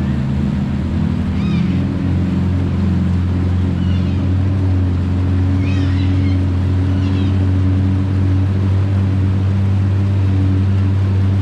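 A boat's motor running steadily at cruising speed, with a few short, high, squeaky calls heard over it.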